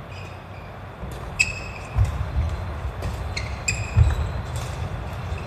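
Badminton singles rally on a wooden sports-hall floor: two short sneaker squeaks, and two heavy thuds of footfalls as a player lunges, with a few light clicks in between.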